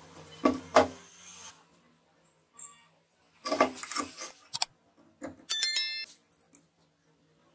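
Hand-handling of a small DC motor and its steel shaft coupler on a wooden workbench: two sharp knocks about half a second in, a cluster of clicks a few seconds later as a hand tool works at the coupler, then a short bright metallic ring, like a bell, near the end.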